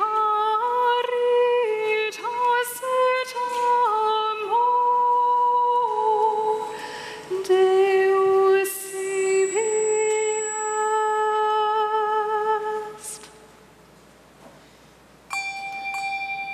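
A woman singing a slow unaccompanied solo melody in long held notes with vibrato, ending about 13 seconds in. After a short pause, handbells begin ringing near the end.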